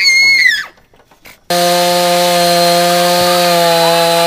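A brief high-pitched squeal, then, after an edit about a second and a half in, a chainsaw running at a steady high speed.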